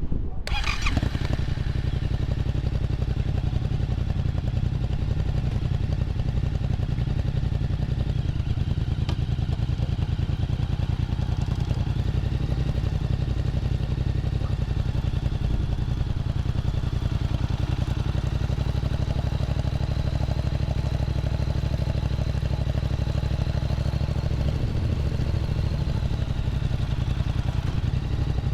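Yamaha MT-07's parallel-twin engine catching in the first second, then idling steadily.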